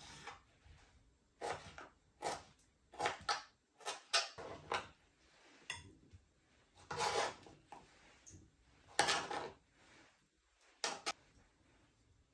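Kitchen knife slicing a tomato on a plastic cutting board: irregular taps of the blade on the board, with a few longer scrapes as the pieces are pushed off the board.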